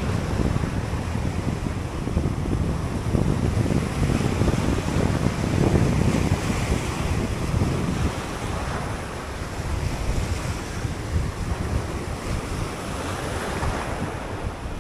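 Sea surf breaking and washing over a rocky reef shelf, the wash swelling louder now and then, with wind buffeting the microphone.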